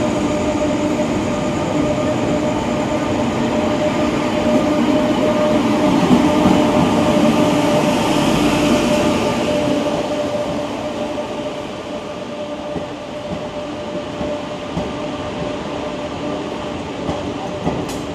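Indian Railways WAP-7 electric locomotive running, its steady whine of several tones over the rumble of the train. It is loudest about six to nine seconds in and eases off somewhat after that, with a few sharp clicks near the end.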